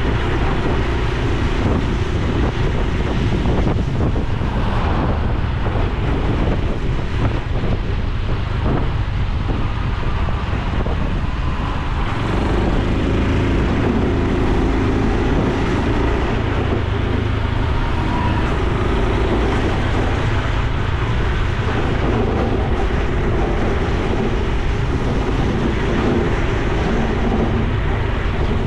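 Honda Super Cub C125's 125 cc single-cylinder four-stroke engine and exhaust running while riding, with wind noise on the helmet/bike-mounted microphone; the engine note grows stronger about twelve seconds in.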